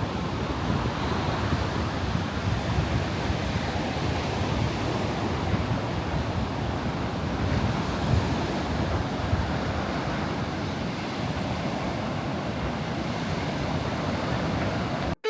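Strong windstorm gusts blasting across the microphone with a heavy, uneven rumble, over the wash of surf breaking on the beach. It cuts off suddenly at the very end.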